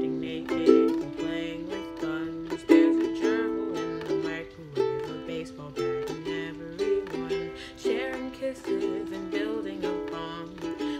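Acoustic string instrument strummed in a rhythmic chord pattern, without singing.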